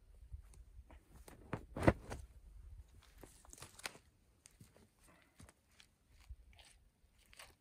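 Handling noises while a deer carcass is broken down in dry brush: scattered crunches, clicks and rustling as a white game bag is opened out and the men shift in the grass. A single sharp crunch about two seconds in is the loudest.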